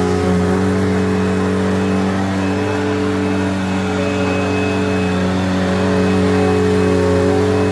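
Eureka Whirlwind LE upright vacuum cleaner running steadily while vacuuming a rug: a loud, even motor hum.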